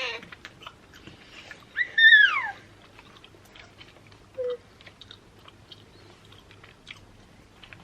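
Chewing and small wet mouth clicks from someone eating a soft chewy candy. About two seconds in comes a short, high squeal that slides down in pitch, and a brief low hum follows a couple of seconds later.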